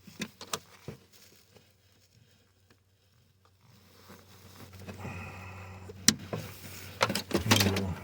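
Scattered clicks and small rattles of hand tools and wiring being handled in a car: a few light clicks at the start, a sharp click about six seconds in, and a cluster of clicks and rattles near the end.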